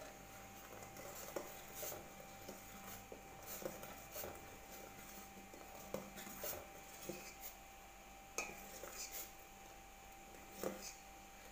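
Metal ladle stirring in a metal pot of boiling milk and sugar, giving faint, scattered taps and light clinks against the pot's side, a little louder about two-thirds of the way in and again near the end.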